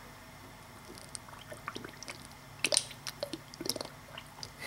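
Coolant gurgling and popping at the open bleed screw hole of a BMW M62 V8's cooling system as trapped air bubbles work out while the upper radiator hose is squeezed: the system being bled of air. Irregular small wet pops and squelches, with two louder clusters a little past halfway.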